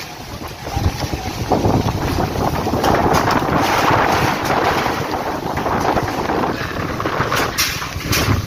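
Strong dust-storm wind gusting hard and buffeting the microphone, swelling about a second in and staying loud, with a few sharp knocks near the end.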